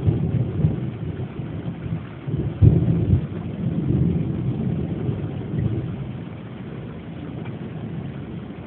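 Thunder rumbling during a severe storm, with a sudden loud clap about two and a half seconds in, then the rumble slowly dies away over the last few seconds.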